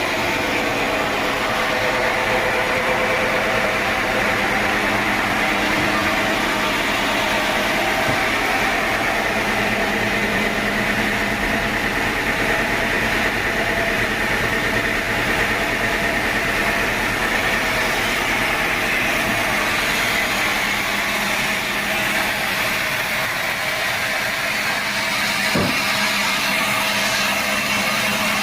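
Sawmill saw machinery running steadily, a continuous hum with a hiss over it, with a single sharp knock near the end.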